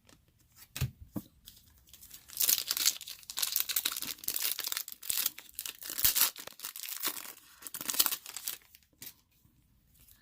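Wrapper of a 2020 Donruss baseball card pack being torn open and crinkled: a dense run of tearing and crinkling from about two seconds in until about nine seconds, with a few small clicks before it.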